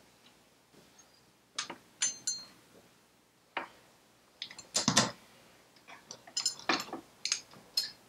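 Bolts and small metal parts clinking and clicking against a steel motorcycle frame bracket as they are tried in the holes: a dozen or so sharp taps, some with a brief metallic ring, coming in small clusters, the loudest about five seconds in.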